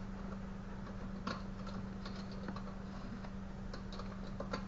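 Faint, scattered small clicks and rustles of a bungee cord and its hooks being wrapped around a car-seat headrest, over a steady low hum.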